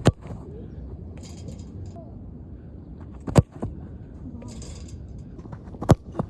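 ASMR tapping and scratching on football boots: three sharp taps about two and a half seconds apart, with short scratchy rustles between them.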